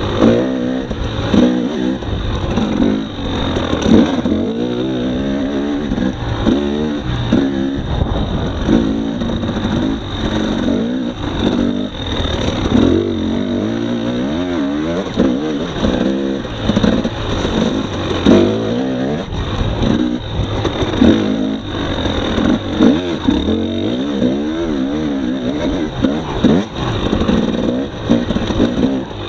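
2018 Husqvarna TX300 two-stroke enduro bike's engine revving up and down over and over as it is ridden along a rough trail, with scattered knocks from the bike over the bumps.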